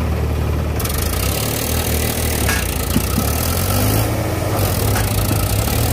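Diesel engine of a Powertrac Euro tractor running steadily at a low, even note, with a hiss joining in about a second in.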